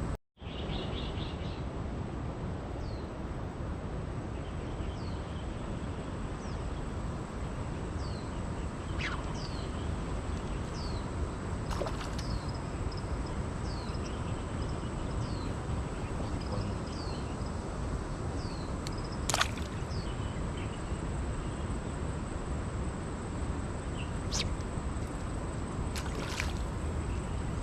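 Steady rush of a rain-swollen mountain stream, with birds giving short downward chirps every second or so and a few sharp clicks.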